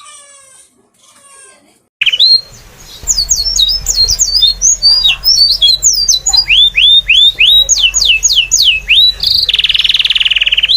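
Small birds chirping loudly and rapidly in quick high-pitched sweeping chirps, starting abruptly about two seconds in, with a harsh buzzy call near the end. A low steady hum runs underneath.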